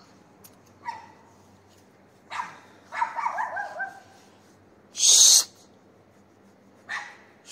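A dog barking a few times in the distance, with a quick run of high yelping barks about three seconds in. About five seconds in there is a louder short hissing burst.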